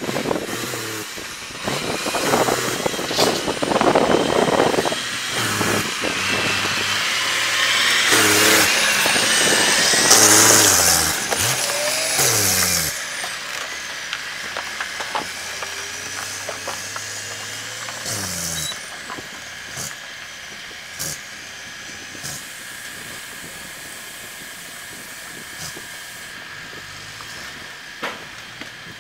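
Loaded log truck's diesel engine running under load as it drives up, its pitch stepping up and down with revs and gear changes, with a hiss about ten seconds in. For the second half it is quieter, crawling along, with scattered knocks and clanks.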